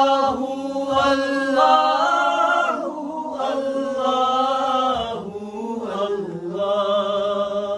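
Unaccompanied male voices chanting a devotional qasida: a lead singer holds long, wavering notes over a steady low drone, pausing briefly twice for breath.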